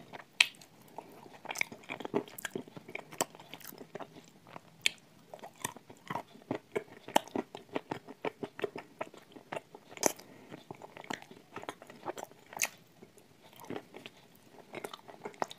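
Close-up biting and chewing of a dry, crumbly grey piece of edible 'Turkistan tile' clay: a steady run of small, sharp, irregular crunches.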